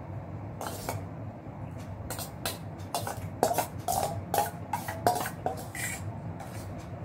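A metal spoon clinking and scraping against a stainless steel bowl while eating milk and puffed rice: a quick run of light metallic knocks with a short ring, thickest in the middle seconds, over a steady low hum.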